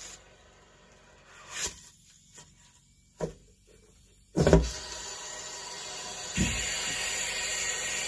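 A knock about four and a half seconds in, then a steady hiss of air being drawn into the electrical conduit by a shop vacuum at its far end, pulling a foam mouse through the pipe. The hiss grows louder and brighter about six and a half seconds in.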